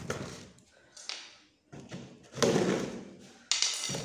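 Large cardboard shipping box being handled and shifted, with a few thuds and scrapes of cardboard and packing tape, the loudest about two and a half seconds in.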